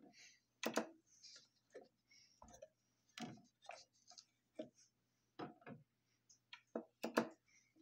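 Irregularly spaced clicks and knocks, a dozen or so with the sharpest about a second in and near the end, over a faint steady low hum; no music is playing.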